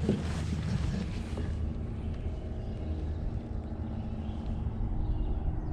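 Steady low drone of a boat motor running, holding an even pitch, with a few faint clicks near the start.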